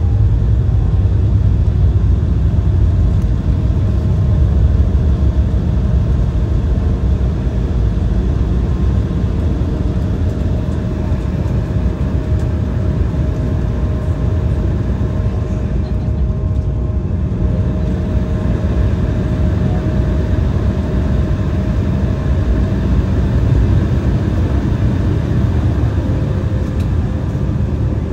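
Steady cabin noise inside an Embraer E175 regional jet with twin GE CF34 turbofans: a low rumble with faint steady engine tones above it, as the plane rolls on the ground after landing.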